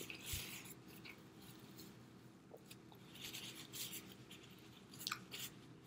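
Paper crinkling softly as hands handle a wrapped burger, in short scratchy bursts with a couple of small clicks near the end.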